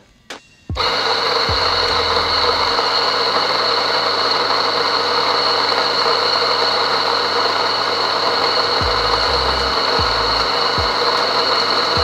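SanRemo AllGround electric coffee grinder with titanium burrs grinding a 20-gram espresso dose: the motor starts abruptly just under a second in and runs steadily with a high-pitched whine over a grinding hiss, loud at about 86 to 87 decibels.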